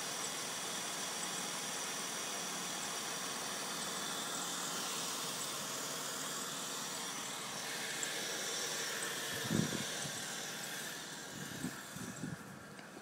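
Dodge Intrepid's 2.7-litre V6 idling steadily, an even running sound with hiss. There is a single thump about nine and a half seconds in, and the idle grows fainter near the end with a few light knocks.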